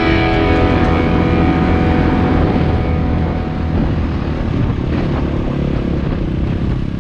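Trail bike engine running steadily while riding a dirt track, heard from the bike itself. A music track fades out during the first second.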